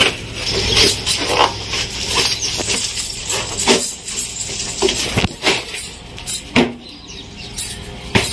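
Cardboard box and its packing being handled and opened: irregular rustling and scraping of cardboard and paper, with a few sharp clicks and knocks.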